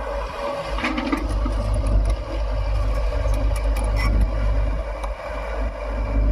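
Heavy diesel earth-moving machine running with a deep steady rumble, with scattered scrapes and clanks from digging in sand.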